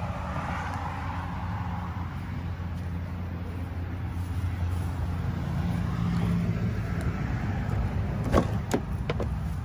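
Steady low wind rumble on the microphone, then the exterior door handle of a Mercedes-Benz W124 sedan pulled and the door latch opening with a quick run of sharp clicks near the end.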